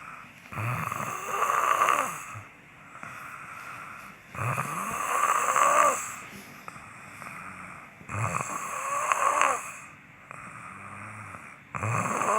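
A sleeping person snoring: four loud snores about four seconds apart, with quieter breathing between them.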